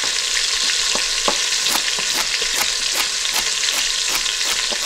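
Chicken sizzling as it browns in hot oil in an Instant Pot on sauté mode, a steady hiss. Over it a chef's knife chops celery on a wooden cutting board, a few sharp taps at first, then about two to three a second.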